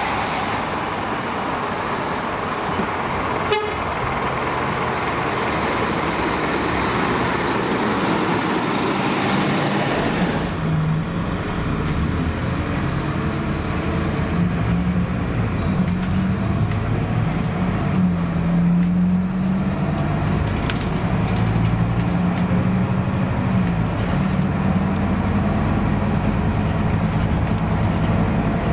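For about the first ten seconds, a Scania K280UB city bus pulling away is heard from the roadside amid street noise. Then, heard inside the passenger cabin, its engine drones low, the pitch stepping up and down as the bus accelerates and changes gear.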